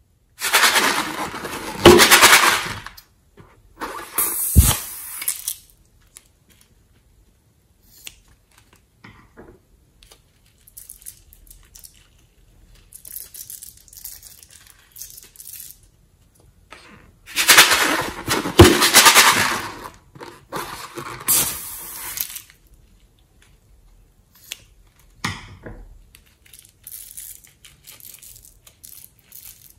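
Hands squeezing filled rubber balloons and working their contents out into a bowl of foamy slime. The sound is wet, crackly squelching in noisy bursts, two near the start and a longer one a little past halfway, with softer crackling and popping of the foam in between.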